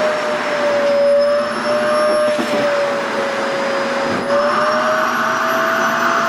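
SHARP EC-KP7F-A vacuum cleaner running continuously with a steady motor whine over rushing air. It is drawing on a stiff organza skirt that lets air through easily, so the suction never properly grabs it. The whine sags slightly in pitch and comes back up, and the airflow hiss shifts about four seconds in.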